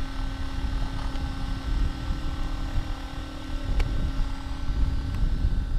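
Wind rumbling on the microphone with a faint steady hum, and one small click about four seconds in.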